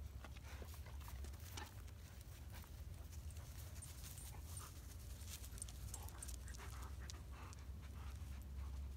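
Dogs panting faintly, in short irregular breaths, over a low steady rumble.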